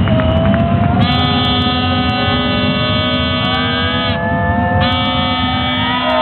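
A horn sounds two long, steady blasts over the din of an arena crowd: the first starts about a second in and lasts about three seconds, and the second follows after a short gap. Fainter tones slowly rise in pitch underneath.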